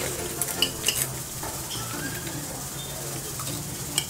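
Eating sounds at a table: forks and spoons clinking against ceramic plates, a few sharp clicks, and noodles being slurped, over a steady low hum.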